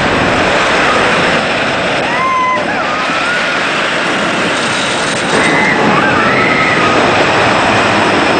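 Wooden roller coaster train rumbling along its track, a loud steady roar, with riders' screams about two seconds in and again around six seconds.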